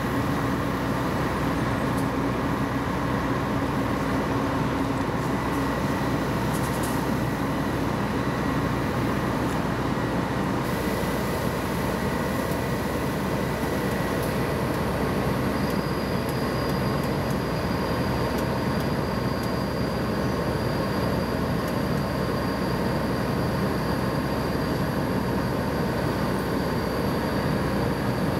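Steady drone of idling vehicle engines, unbroken, with a faint thin high tone that comes in about halfway through.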